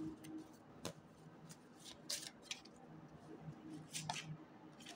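A tarot deck shuffled by hand: faint, soft rustles and clicks of the cards slipping against each other, coming at irregular moments.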